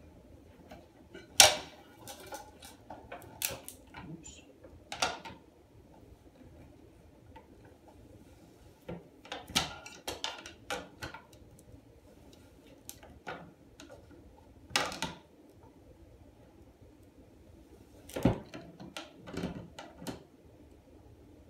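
Slip-joint pliers gripping and turning the new flush-valve nut on the underside of a porcelain toilet tank as it is tightened: irregular clusters of clicks, knocks and scrapes, with the sharpest knock about a second and a half in.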